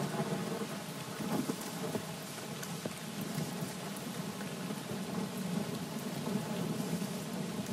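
Steady rain falling, with a low rumble underneath, as a rain-ambience intro to an electronic track.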